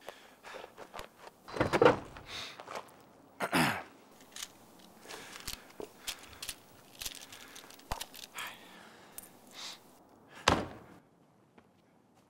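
SUV passenger door opening with a loud thunk, then small clicks and rustling as things are rummaged through inside the cab, and the door slamming shut a little before the end.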